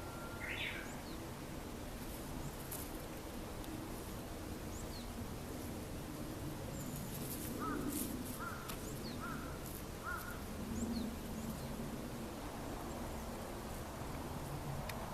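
Outdoor ambience with birds calling: scattered short, high chirps over a steady background hiss, and a run of four short calls about halfway through.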